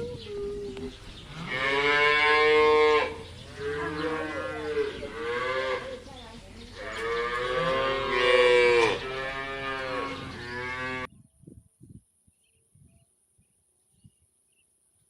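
Cow mooing: long, drawn-out moos that waver in pitch, loudest twice, then cut off abruptly about eleven seconds in.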